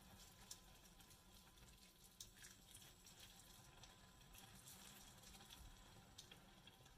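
Near silence: a faint simmer of risotto rice and zucchini in a pan just topped up with hot water, with a few light clicks.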